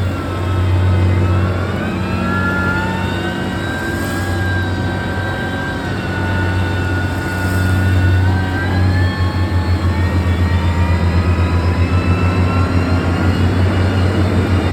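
Heavy diesel earthmoving machine running, with a high whine that slowly rises and falls over its low drone. About nine seconds in, the drone turns into a fast, even throbbing.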